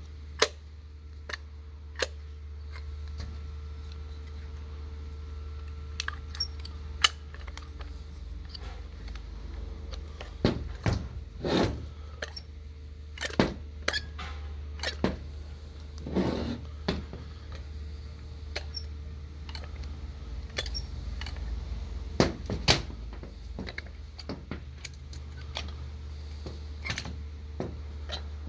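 Scattered sharp metal clicks and clunks from a 1967 Oldsmobile Rochester Quadrajet four-barrel carburetor as it is handled, turned over and set down on a concrete floor, over a steady low hum.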